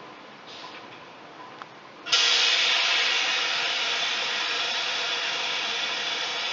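Loud hiss of air venting from the train, starting abruptly about two seconds in and easing off only slightly, after a few faint clicks.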